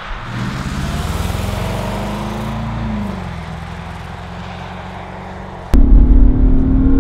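Land Rover Defender's supercharged 5.0-litre V8 accelerating away, its note rising, then dropping about three seconds in and fading. Near the end, loud music cuts in suddenly.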